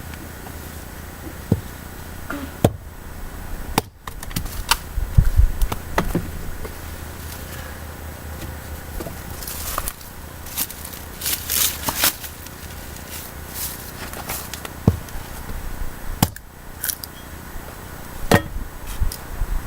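Firewood being chopped by hand: irregular sharp knocks and cracks of wood, spaced unevenly a second or several apart.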